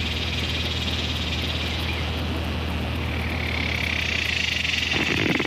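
Steady high-pitched trilling of a night chorus over a low steady hum. The trilling swells about four seconds in, and a louder rushing noise builds near the end.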